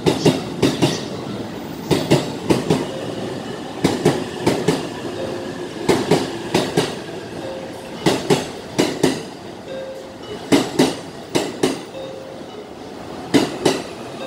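JR East E531 series commuter train's steel wheels clacking over rail joints as it rolls slowly along the platform. The clacks come in groups of two or three about every two seconds over a steady rumble, spacing out toward the end as the train slows.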